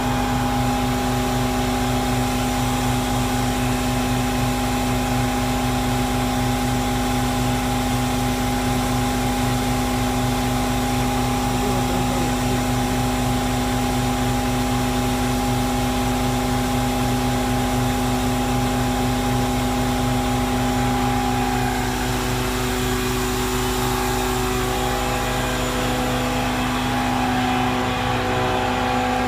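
Loud, steady machine drone with several fixed hum tones over a rushing noise, unchanging throughout, typical of an idling truck engine or truck-stop machinery.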